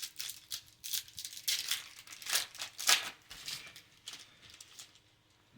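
Crinkling and rustling of a foil Yu-Gi-Oh booster pack wrapper and cards being handled and opened, in a run of short, irregular crackles, the loudest about two and a half and three seconds in.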